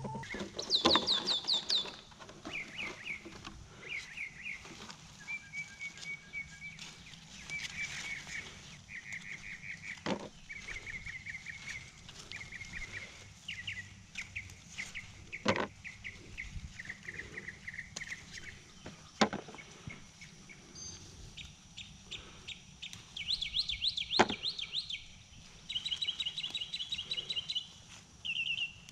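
Wild songbirds singing: repeated short trills of rapid high notes, over and over. A few sharp clicks come in between them.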